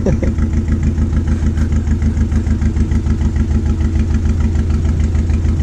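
Narrowboat engine running as the boat passes close by, a steady, even chug over a deep hum.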